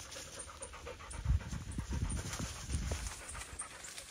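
A dog panting hard and fast, in a quick, even rhythm, with a few low bumps around the middle.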